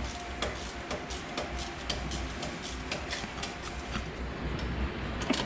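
Hand ratchet clicking in an irregular run of sharp clicks, a few a second, over a low steady hum.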